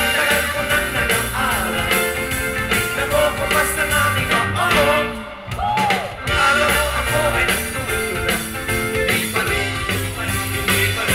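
Live band music with two male singers singing into microphones. The music drops away briefly about halfway through, then comes back in.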